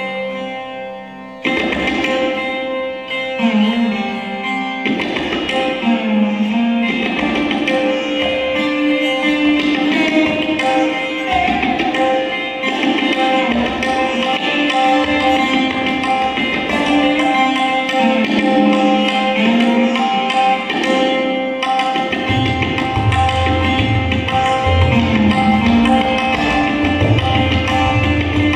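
Hindustani classical instrumental: a lap-held slide string instrument plays a gliding melody over ringing sympathetic strings, accompanied by tabla. The tabla's deep bass strokes come in strongly about 22 seconds in.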